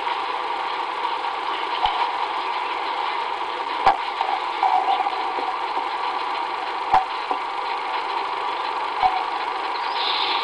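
Common ravens making short, sharp knocking clicks, a few seconds apart, over a steady background hiss.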